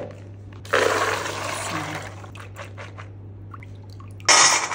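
Soaked chickpeas and their soaking water poured into a plastic colander basket set in a bowl, the water draining through. A few light clicks follow, and a second, louder pour starts near the end.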